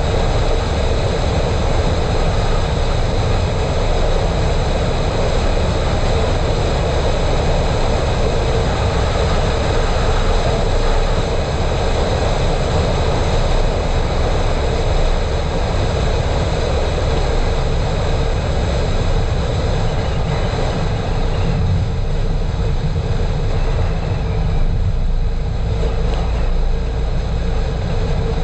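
Steady driving noise of a car on an asphalt road: a deep rumble of tyres and wind with a faint steady hum, easing slightly in the higher range near the end.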